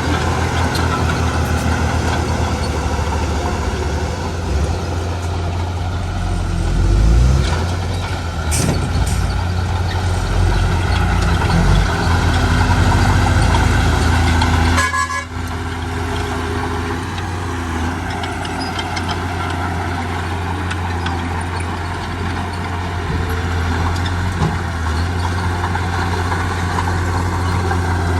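Heavy diesel engines of earthmoving machines running steadily, with a few sharp knocks about eight seconds in. The sound breaks off briefly about halfway.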